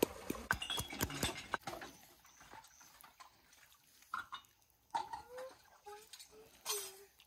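Wooden pestle pounding garlic and ginger in a wooden mortar: a quick run of sharp knocks over the first two seconds. Later come a few short animal calls.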